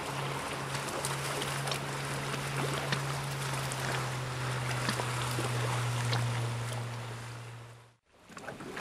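Evinrude outboard motor running steadily as the boat passes, a droning hum that grows a little louder about six seconds in, then fades out near the end.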